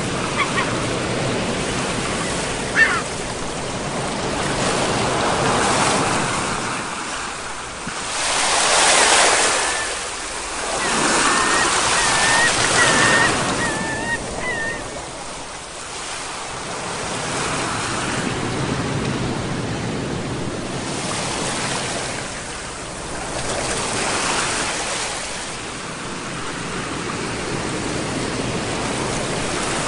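Sea waves breaking and washing in, the rush swelling and falling back every few seconds. A brief wavering high-pitched call sounds over the surf about midway.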